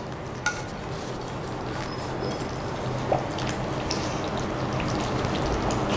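Whole urad dal bubbling in a kadhai while thick tomato gravy is poured in from a pan, a steady wet bubbling that slowly grows louder, with a couple of light clicks.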